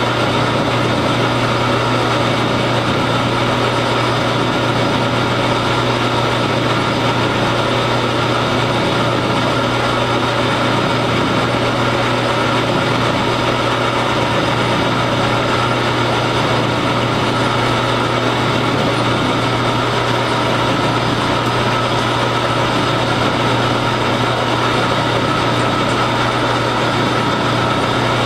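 Metal lathe running steadily with a constant motor and gear hum, while a drill held in the tailstock chuck bores into the end of the spinning workpiece.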